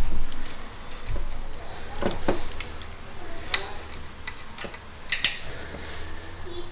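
Scattered light clicks and clinks of hand work in an engine bay as a rubber hose and its fittings are refitted, the sharpest pair of clicks about five seconds in.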